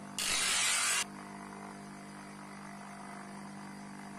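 Electric grinder motor running with a steady hum; just after the start a leaf-spring steel sword blade is pressed against its spinning sanding disc for under a second, giving a loud hissing grind. After that only the motor hum is left.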